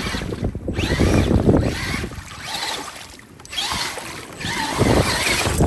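Strong wind buffeting the microphone in gusts, a loud rumbling rush that eases briefly about three seconds in before building again.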